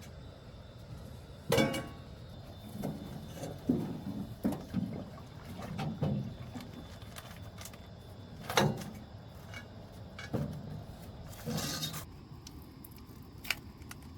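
Irregular knocks, clatters and scrapes of objects being handled, with two sharp knocks about a second and a half in and again past the middle, and a short scraping rustle near the end.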